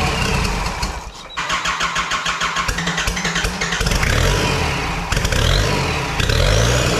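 Nissan TD27 four-cylinder turbo-diesel engine running on a stand just after starting. It dips briefly about a second in, then picks up again with a fast, even diesel clatter. Near the end it is revved, and a high whistle rises and falls.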